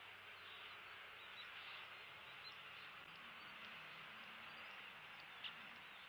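Faint outdoor ambience: a steady hiss with scattered faint, high chirps of small birds, and one sharp tick near the end.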